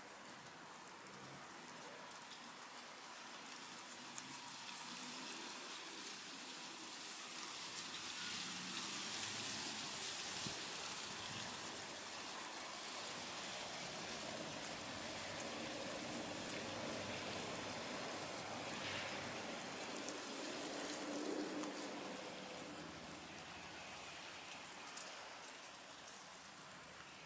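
Guinea pigs munching and rustling through a pile of fresh-pulled garden weeds: a dense, fine crackle of chewing and leaf rustle, dotted with small clicks. It grows louder through the middle, and there is one sharper click near the end.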